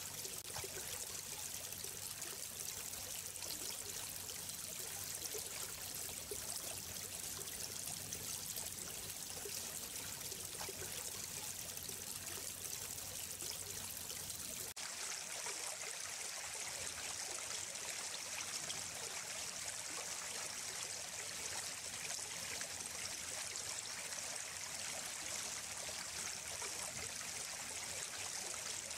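Running water of a stream, a steady rush of water noise. About halfway through the sound changes abruptly as the deeper rumble drops away, leaving a brighter hiss.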